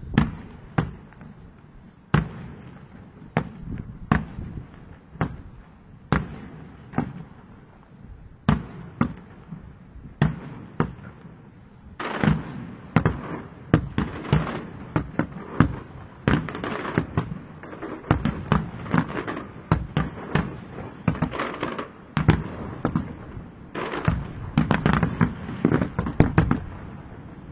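Aerial fireworks shells bursting one after another, a steady series of sharp bangs with short echoes. From about twelve seconds in the bangs come faster and louder, and they build to a dense barrage near the end.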